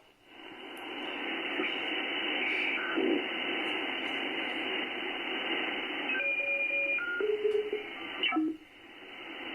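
Icom IC-7610 HF receiver audio on the 20 m band: a steady hiss of band noise, around S4, the interference being troubleshot, with short steady tones of signals coming through about six to seven and a half seconds in as the receiver is tuned up the band. The hiss dips briefly near the end.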